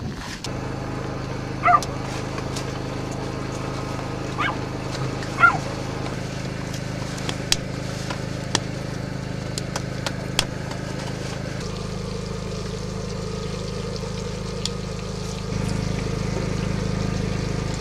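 A steady low motor hum, with a dog barking three times in the first six seconds and scattered light clicks of dishes and spoons.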